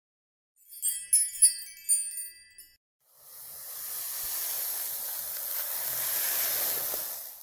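Logo-sting sound effects: a quick flurry of high tinkling chime notes, then a long airy whoosh of hiss that swells for about four seconds and fades out as the logo dissolves into particles.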